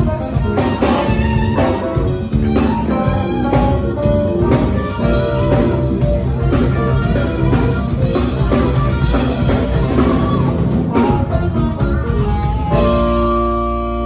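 Live band with drum kit, electric guitar and keyboards playing a soul groove with a steady beat. Near the end the drums stop and the band holds one long sustained chord.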